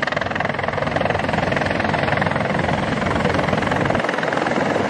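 Two large military transport helicopters flying in low, a loud steady rapid chop of rotor blades.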